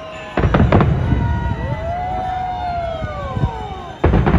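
Fireworks display: a cluster of loud bangs about half a second in and another near the end, with several whistling fireworks gliding up and down in pitch between them.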